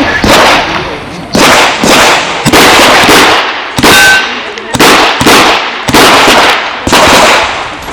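A string of gunshots from a Chiappa Rhino revolver firing .38 Special, about one shot a second, each sharp report followed by a short echo.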